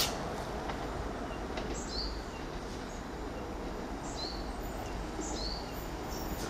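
Class 170 Turbostar diesel multiple unit approaching at low speed, a steady low engine and rail rumble. A bird calls over it three times, each a short high chirp falling in pitch.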